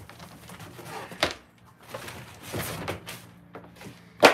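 Cardboard bike-box packaging being handled and pulled apart: a few short scrapes and rustles, then a sharp knock near the end, the loudest sound.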